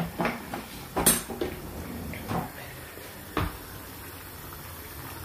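A wooden spoon and cookware knock and clink against a pan several times over the first three and a half seconds, with one sharp metallic clink about a second in. After that a faint steady hiss of the sauce simmering in the pan remains.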